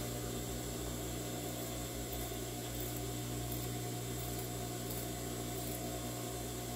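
Scissors snipping through quilted fabric and batting, faint and soft, over a steady low electrical hum.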